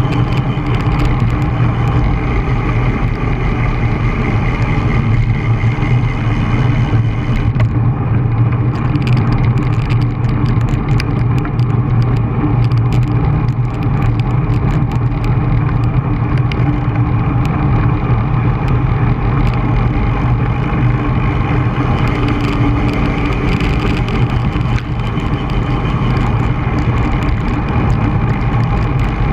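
Steady wind rush over the microphone of a camera riding on a moving road bicycle, with frequent small knocks and rattles from the road.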